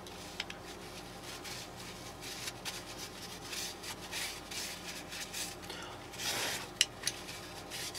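A freshly assembled Leatherman Surge multitool being wiped down by hand to remove excess lubricating oil: repeated soft rubbing strokes over the metal, with a louder swish and a sharp metallic click near the end.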